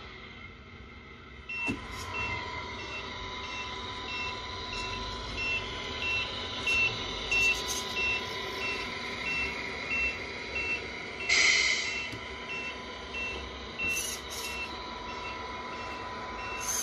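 The electronic sound unit of a 1/14-scale RC Scania 113H truck plays reversing beeps about twice a second over a steady engine hum as the truck backs up. About halfway through there is a short, loud hiss of air.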